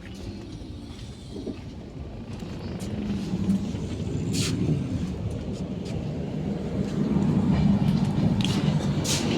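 Running noise of a moving passenger train heard inside a sleeper coach: a steady low rumble that grows louder about three seconds in and again past the middle. Two brief sharp noises come about halfway through and near the end.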